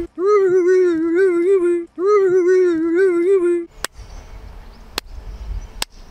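A single-line wavering tune in two repeated phrases of nearly two seconds each. It is followed by three sharp hand claps about a second apart, flat hands slapped together like a clapperboard, over a faint wind rumble.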